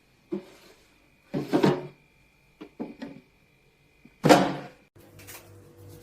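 Short knocks, thumps and clicks, like a lid or door being handled, opened and shut; the loudest comes a little past four seconds. About five seconds in, a low steady hum starts up.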